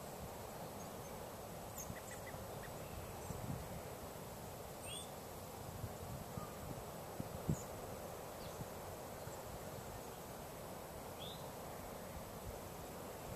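Outdoor ambience: steady wind noise on the microphone with uneven low rumbles, and a few faint, short bird calls scattered through.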